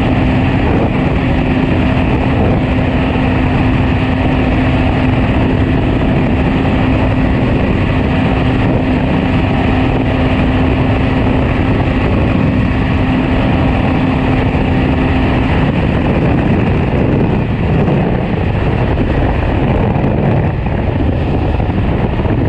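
BMW R 1250 GS Adventure Rally's boxer-twin engine running at steady speed under a heavy rush of wind and road noise, heard from the rider's seat. A steady engine hum holds until about two-thirds of the way through, then drops out.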